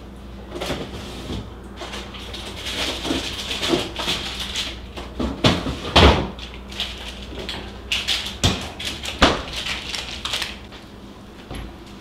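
Refrigerator door opened and things shifted and knocked about inside it: a string of knocks and rattles starting about two seconds in, the sharpest about six seconds in, thinning out near the end.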